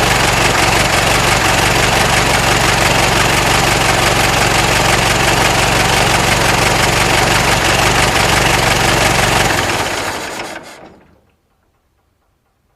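Ford Model T's four-cylinder engine idling steadily, then switched off, running down and dying away over a couple of seconds.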